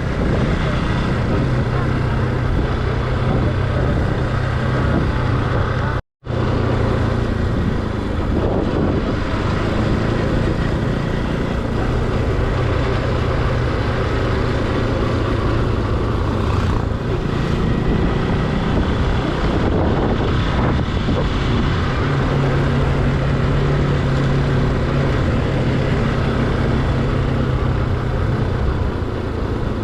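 Motorcycle running steadily while riding, its low engine note under heavy wind and road noise. The sound cuts out completely for a moment about six seconds in.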